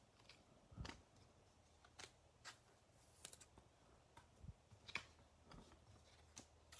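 Faint, scattered light ticks and taps of basketball trading cards being handled and laid down on a table, about eight or nine soft clicks spread irregularly through the quiet.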